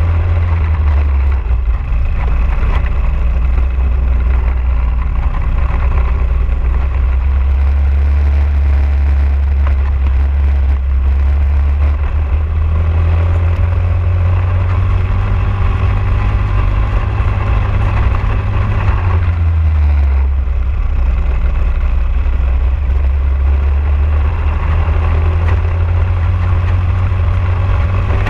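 Onboard sound of a racing kart's Briggs & Stratton LO206 single-cylinder four-stroke engine running hard through a lap. Its pitch falls about two-thirds of the way in as the driver lifts for a corner, then climbs again as he gets back on the throttle.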